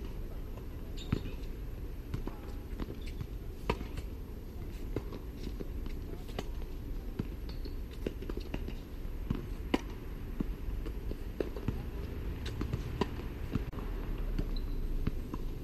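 Tennis rally on a hard court: sharp pops of racket strings striking the ball and the ball bouncing, about one a second, with footsteps, over a steady low rumble.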